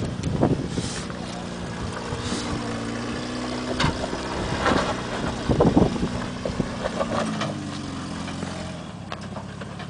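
Lifted Toyota pickup's engine running under load as it crawls over granite boulders, its engine speed rising and falling, with several sharp knocks scattered throughout.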